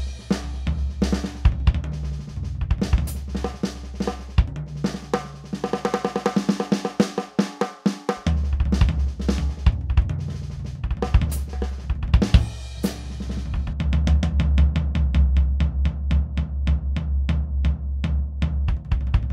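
ATV aDrums Artist electronic drum kit's sampled drum and cymbal sounds played as a busy groove with fills, including a fast drum roll about six seconds in, over a steady low bass.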